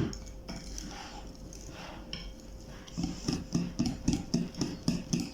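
Cake batter being stirred in a mixing bowl. The utensil works through the thick, wet mix, quieter at first, then in even strokes about three a second from about halfway through.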